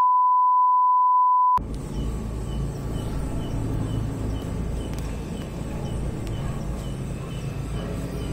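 A steady 1 kHz test-tone beep over a colour-bar screen, loud and held for about a second and a half before it cuts off sharply. It gives way to outdoor night ambience: a low rumbling noise with faint, regular high chirps about two or three a second.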